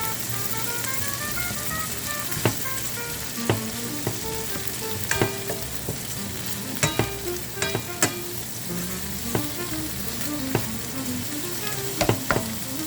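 Shredded carrots and long beans sizzling in hot oil as they are stir-fried, with a steady hiss and the spatula knocking against the pan about nine times at uneven intervals.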